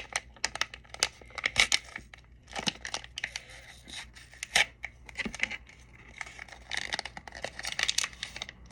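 A small plastic wrapper being torn open and crinkled by hand, with an irregular run of crackles and rustles that stops near the end, as a miniature toy is unwrapped.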